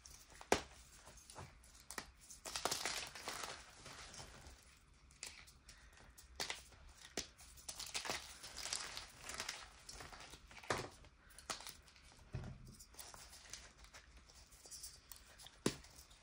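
Gym chalk worked by hand: powder rubbed between the fingers and pressed chalk balls crushed and crumbling, a gritty, crunchy rustle with a few sharp cracks as pieces snap.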